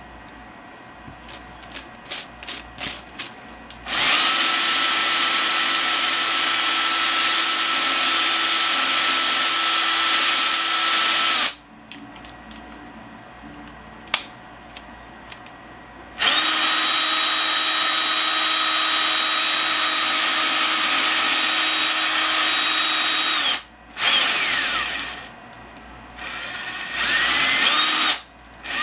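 Power drill spinning a 3D-printed plastic planetary gear bearing to break it in: two long runs of about seven seconds each at a steady whine, with a pause between. Then a shorter run whose pitch falls as it winds down, and a brief rev back up near the end; a few light clicks come before the first run.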